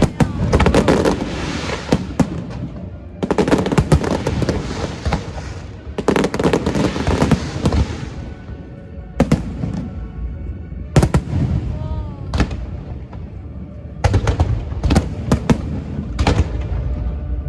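Aerial fireworks going off: repeated sharp bangs and three long stretches of dense crackling in the first eight seconds, then scattered single bangs and a fresh volley near the end.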